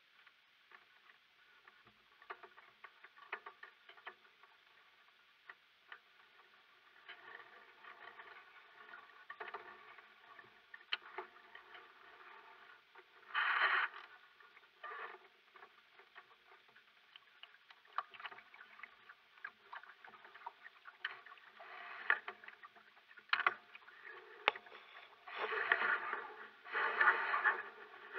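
Water splashing and lapping against the hull of a sailboat under way, with scattered clicks. Louder splashes come about 13 seconds in and several times near the end.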